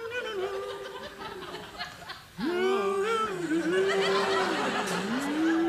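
A slow tune in long held notes, stepping up and down, louder from about two and a half seconds in, with a studio audience laughing over it.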